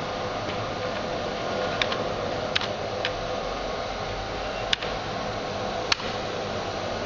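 Five sharp, spaced-out clicks of computer keyboard keys as gain commands are typed into a terminal; the last two, near the end, are the loudest. Underneath runs a steady fan-like whir.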